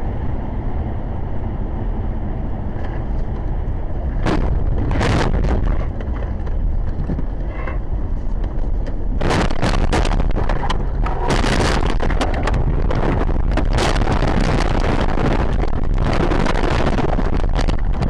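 Dashcam sound of a car crashing on a snowy road: a loud, steady rumble of road and wind noise, broken by sharp bursts of crashing and scraping about four and five seconds in, then a dense run of them from about nine seconds as the car tumbles off the road.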